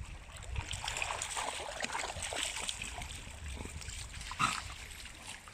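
A dog splashing and sloshing through shallow river water while fetching, with scattered short splashes and patters.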